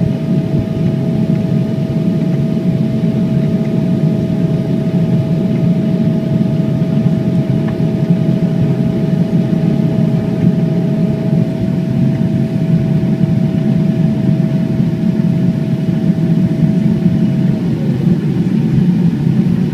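Steady jet airliner noise from a Boeing 777-300ER: a low rumble with a steady whine on top that slides down in pitch near the end.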